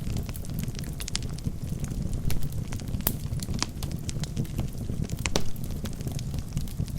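Wood fire burning in a fireplace: a steady low rushing of the flames with irregular sharp crackles and pops from the burning logs, the loudest about three seconds in and again a little after five seconds.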